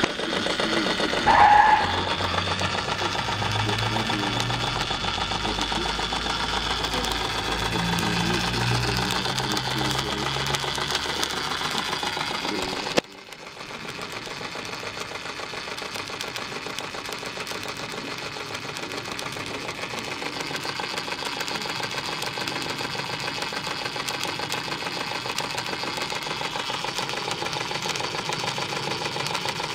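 Märklin 4122/11 vertical live steam engine running, its cylinder and flywheel giving a fast, steady clatter of beats. A short high tone sounds about a second and a half in, and about halfway through the sound breaks off sharply and carries on a little quieter.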